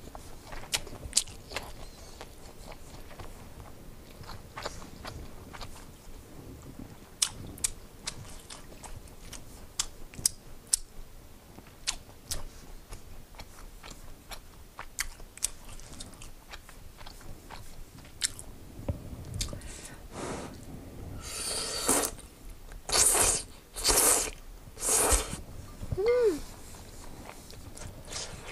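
Close-miked eating sounds: small wet mouth clicks of chewing, then, in the last third, a run of four or five loud slurps of udon noodles.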